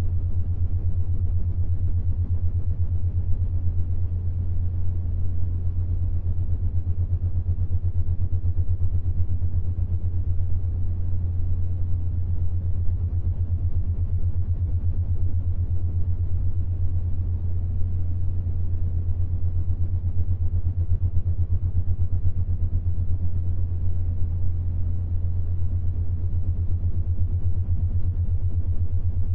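Synthesized binaural-beat drone for the 7.83 Hz Schumann resonance: a steady low hum that flickers rapidly, with a faint rumbling wash beneath it.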